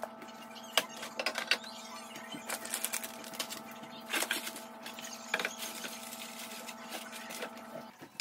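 Packaged snacks and containers being handled at a kitchen pantry: scattered clicks, light knocks and packaging crinkles. A steady electrical hum runs underneath and cuts off near the end.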